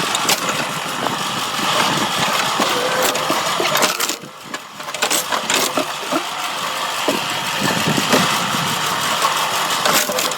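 Engine-driven logging machinery running steadily, with scattered knocks and a brief drop in level about four seconds in.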